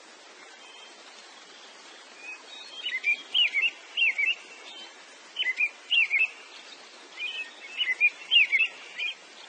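Songbird singing: groups of quick, swooping chirped phrases repeated every second or so, starting about two seconds in, over a steady hiss.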